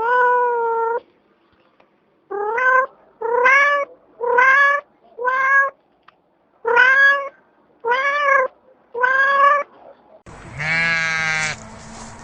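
A domestic cat meowing repeatedly: eight separate meows, each about half a second to a second long. Near the end a sheep starts a wavering bleat.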